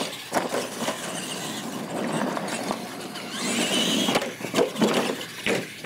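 R/C monster trucks racing over a dirt track, their motors and gears whining, with several sharp thumps as they land from ramp jumps.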